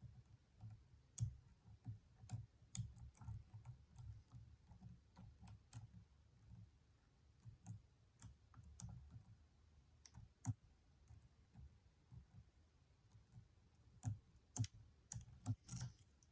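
Faint, irregular light clicks of a lock pick and tension wrench working the pins inside a Stanley padlock challenge lock, with a cluster of sharper clicks near the end.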